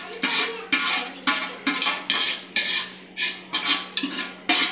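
Wheat grains being stirred around a large metal cooking pot, in quick repeated scraping strokes against the metal, about two to three a second.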